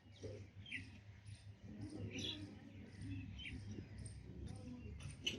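Small birds chirping faintly, short high calls every second or so, over a low steady hum.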